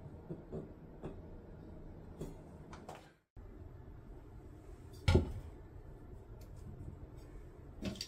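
Light clicks and taps of a black metal towel bar being handled against a tiled wall. The sound drops out briefly just past three seconds in, then a single sharp knock about five seconds in and a smaller one near the end, as a metal toilet-paper holder with a stone shelf is put up against the wall tile.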